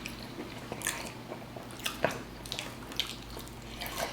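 Close-up chewing and crunching of tortilla chips, a string of irregular sharp crunches.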